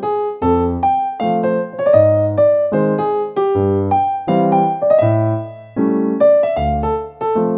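Piano music: a steady run of chords and melody notes over low bass notes, several notes a second.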